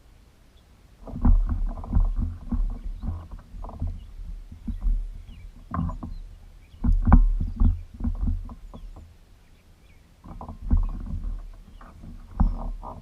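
Two bursts of irregular low thumps, knocks and rumbling, the kind of hull bumps and handling noise heard in a small fishing boat. The first starts about a second in and the second near the end.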